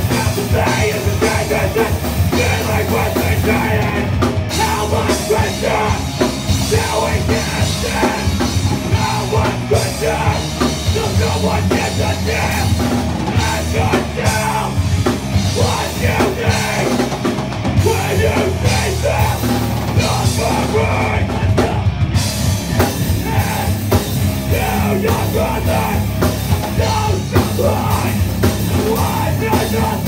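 Hardcore band playing live, with electric guitar, bass and a drum kit going loud and without a break.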